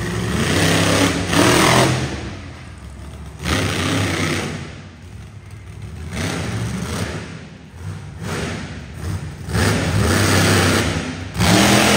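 Fire Hazzard monster truck's engine revving in about four loud surges, each rising and falling as the truck drives around the dirt track.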